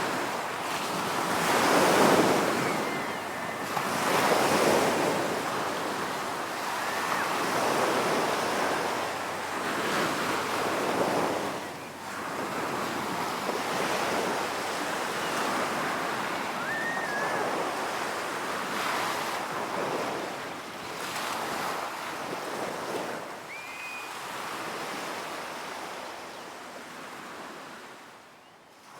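Ocean waves breaking and washing up a beach, swelling and ebbing every two to three seconds at first, then a steadier wash that fades away near the end.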